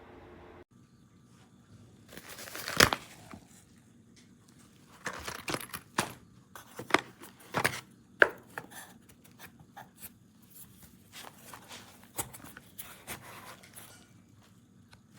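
Objects being handled: irregular clicks, light knocks and short rustling scrapes, the loudest a rustle about three seconds in.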